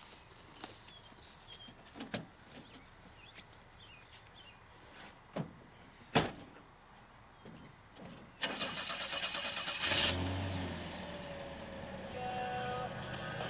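A few sharp knocks, the loudest about six seconds in, then an engine cranks and starts about eight and a half seconds in and keeps running steadily.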